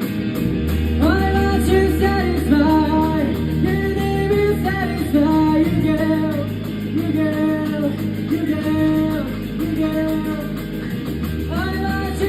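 Live band playing a rock song: electric guitar and bass under a singer's voice, which comes in about a second in.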